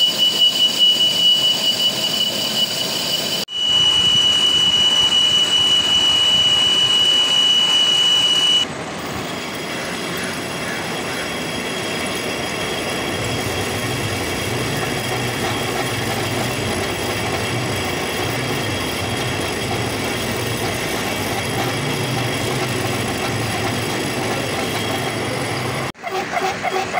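Metal lathe cutting a mild steel bush, the tool squealing on the steel with a steady high whistle for several seconds. After an abrupt change, a boring bar cuts inside the bore with a steady grinding machining noise over a low rumble.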